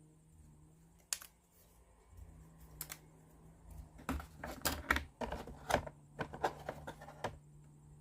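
Light clicks and taps of small plywood kit parts being handled and pressed together, one about a second in and a quick run of them between about four and seven seconds in.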